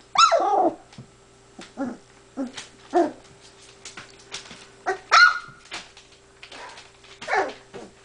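Golden retriever puppy barking: about six high-pitched yapping barks whose pitch slides downward, the loudest right at the start and about five seconds in, with faint clicks between them.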